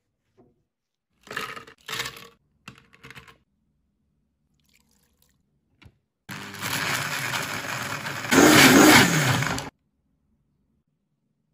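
A few short cuts of a kitchen knife slicing through a mango on a plastic cutting board. Then a countertop blender crushing ice and mango for about three seconds, louder near the end, before cutting off abruptly.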